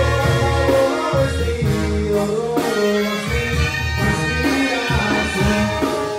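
Music playing, with held bass notes under a melody.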